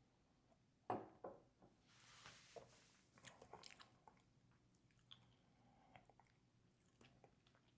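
Faint mouth sounds of someone tasting whiskey: a sip and lip smacks about a second in, a soft airy sound a second later, then scattered small clicks.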